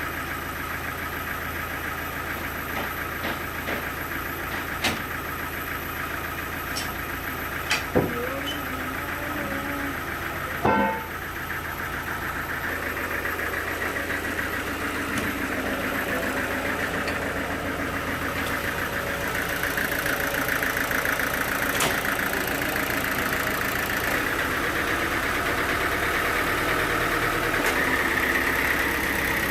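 Sawmill machinery engine running steadily, with a few sharp knocks in the first eleven seconds. It grows gradually louder and brighter from about twelve seconds on.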